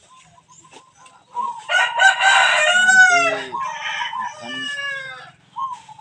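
Rooster crowing: one long crow that starts about a second and a half in and lasts almost four seconds, its pitch bending and falling away at the end.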